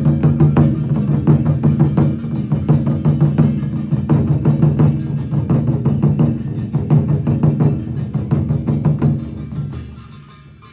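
Ensemble of large barrel drums beaten with sticks in a fast, dense rhythm with a heavy low boom. About nine to ten seconds in the drumming drops away to quieter, sparser strokes.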